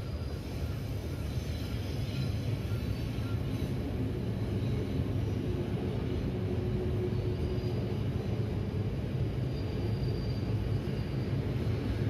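Odakyu Line electric train running past at a level crossing: a steady low rumble that builds slightly over the first couple of seconds, with a faint whine held for a couple of seconds around the middle.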